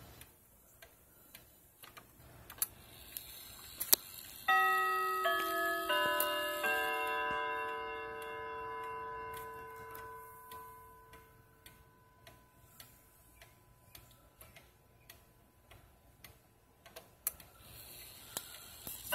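Hamilton headmaster wall clock striking a four-note chime about four seconds in, the notes about 0.7 s apart, ringing on together and fading over several seconds. Light ticks and clicks from the clock run throughout.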